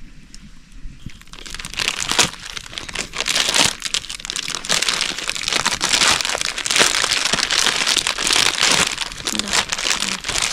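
Dense crinkling and crunching starts about a second in and goes on busily, made up of many small crackles.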